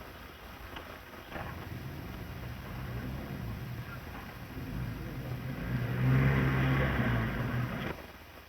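Car engine running, coming in about a second in, growing louder around six seconds in, then cutting off suddenly near the end.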